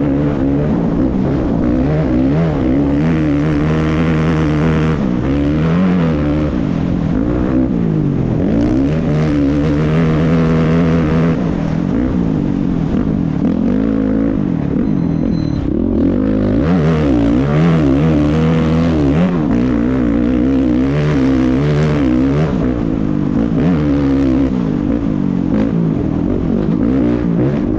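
Engine of an off-road race vehicle running hard over rough dirt, its pitch rising and falling again and again with the throttle.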